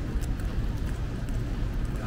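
Rainy city street ambience: a steady low rumble of traffic with scattered faint ticks.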